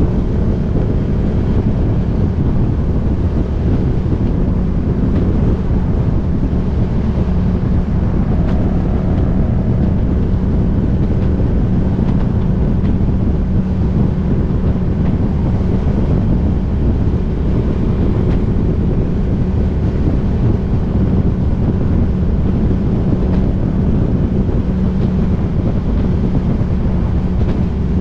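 Motorcycle running at a steady cruise, its engine drone mixed with heavy wind rush on the action camera's microphone.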